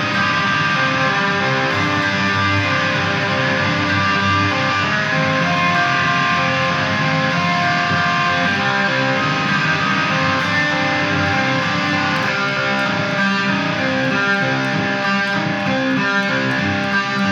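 Guitar music playing steadily, with many notes ringing together.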